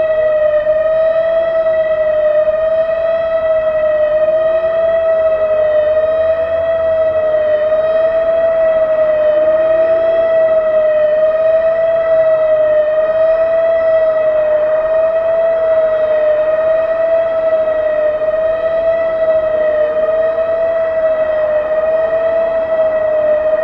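Analog Whelen WS-2016 electronic outdoor warning siren sounding a steady tone with a slight, slow waver in pitch. Fainter, lower-pitched sirens rise and fall underneath.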